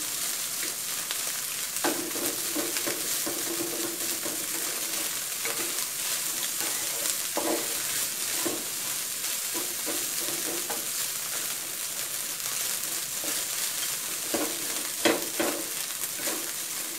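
Cooked rice with shrimp and egg sizzling in a hot wok while a wooden spatula stirs and scrapes it, dry-frying the rice. A few sharper knocks of the spatula against the pan, the loudest two near the end.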